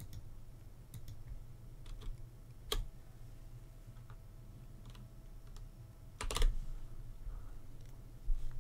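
Sparse computer keyboard keystrokes and clicks, single ones here and there and a quick run of several about six seconds in, over a low steady hum.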